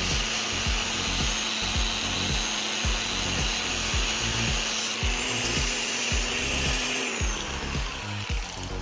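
Angle grinder running with a steady high whine, its pitch sagging a little near the end, over background music with a low beat.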